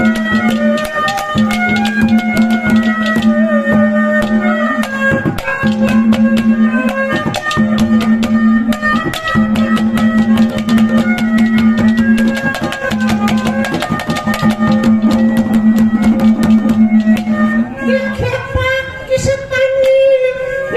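Haryanvi ragini accompaniment music: a held low drone that breaks off and resumes, a stepping melody line above it and quick, steady drum beats. A man's singing voice comes in near the end.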